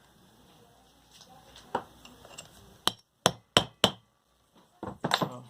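Sharp metal-on-metal strikes on a handleless screwdriver set against the inner ring of a 6201 ball bearing, driving the bearing onto a ceiling fan's shaft: a few light taps, then four sharp strikes in quick succession about three seconds in, and a short clatter of knocks near the end.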